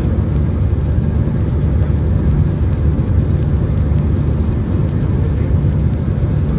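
Cabin noise inside an Airbus A319-131: a steady low rumble of the engines and the air rushing past the fuselage.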